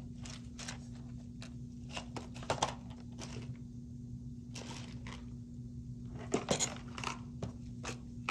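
Irregular light clicks and taps of small dental instruments and supplies being handled and set down on a tabletop, with a cluster of louder clicks about six and a half seconds in, over a faint steady hum.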